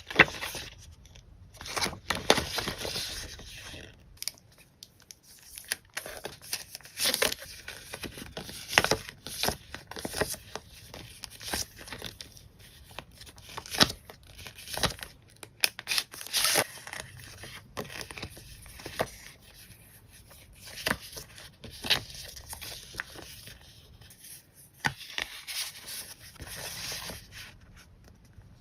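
Stationery packaging of sticker and paper packs being unwrapped and handled: irregular crinkling, tearing and sharp crisp clicks, with no steady rhythm.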